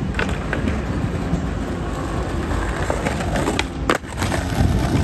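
Skateboard wheels rolling over stone paving with a steady rumble, broken by sharp clacks of boards striking the ground, the loudest a little under four seconds in and more near the end.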